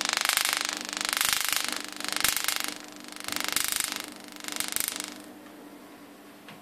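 Solid-state Tesla coil's electrical discharge buzzing, swelling and fading about once a second. It keeps running after its power supply is switched off and dies out a little past five seconds in.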